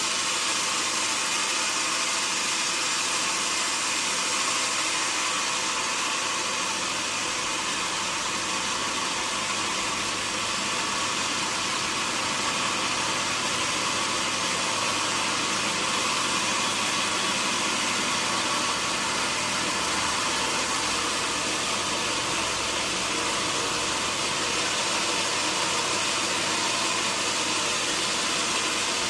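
Sawmill machinery running with a steady, unbroken noise.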